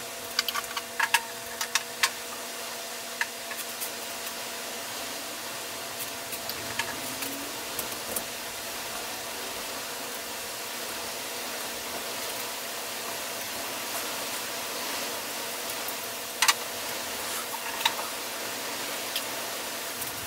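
Plastic CPVC pipe and fittings being handled and fitted together: scattered sharp clicks and taps over a steady hiss, a cluster of them in the first two seconds and the sharpest about sixteen seconds in.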